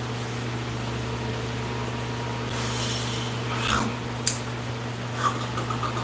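Steady low hum, with a bristle brush drawn over short waved hair in a brief rasp about two and a half seconds in, then a thump and a few sharp clicks in the second half.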